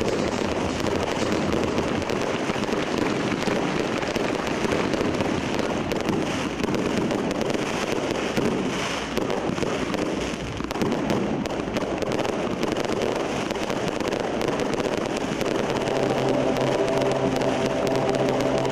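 Fireworks going off continuously: dense crackling and popping over a steady rumble, with no single bang standing out. A steady tone joins in near the end.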